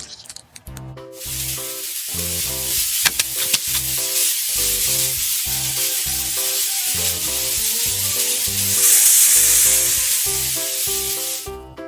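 A steady hiss over background music with a regular beat; the hiss starts about a second in, swells near two-thirds of the way through, and fades just before the end.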